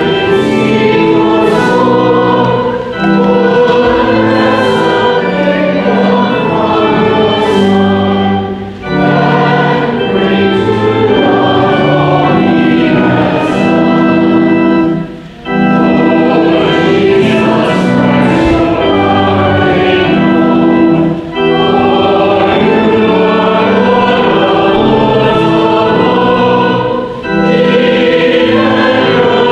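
A hymn sung by a group of voices with organ accompaniment. It goes in phrases of a few seconds, with brief breaks between them.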